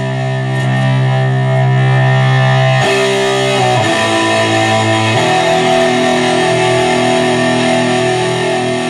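Electric guitar played through a Peavey VTM60 tube amp head and Crate speaker cabinet: chords held and left to ring, changing about three seconds in, again about a second later, and again a little after five seconds.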